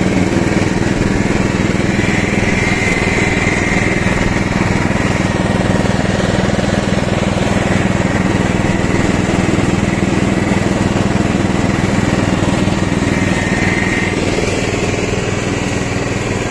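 Riding lawn tractor's 12.5 hp engine running steadily under load as its mower deck cuts tall, heavy grass, with a higher whine that swells a couple of times.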